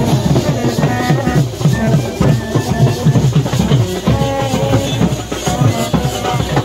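Indian wedding brass band playing: a rapid, steady drum beat with horns carrying a held, wavering tune.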